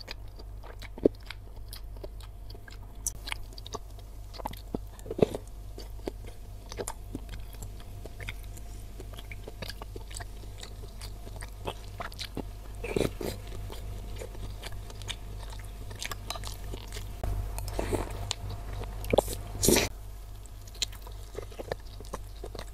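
Close-miked chewing of bakso meatballs and noodles: wet mouth sounds, smacks and bites, with scattered sharp clicks, a few of them louder.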